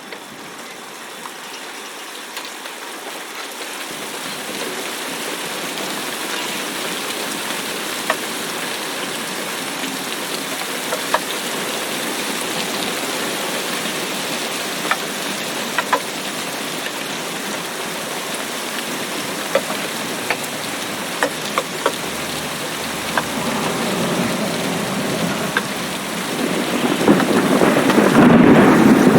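Steady rain, fading in over the first few seconds, with scattered sharp drops striking close by. Near the end a roll of thunder builds and grows loud.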